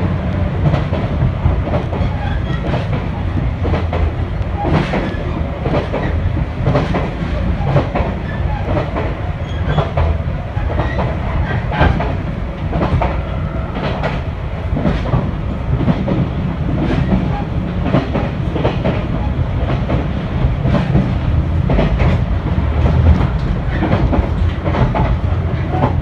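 JR Shikoku 2000 series diesel tilting train running at speed, heard from inside the passenger cabin: a steady low rumble with the wheels clicking irregularly over rail joints.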